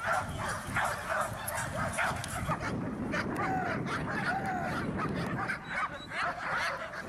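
Dogs barking over and over at a training field, with a couple of short, higher yelps near the middle.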